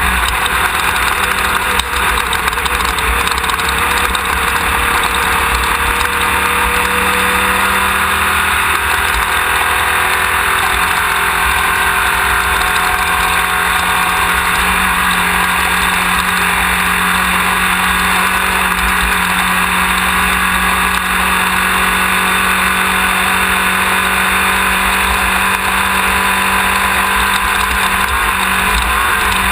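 Off-road race car's engine running continuously under load, heard from an onboard camera over heavy road and wind noise. Its pitch shifts slightly several seconds in, then holds steady.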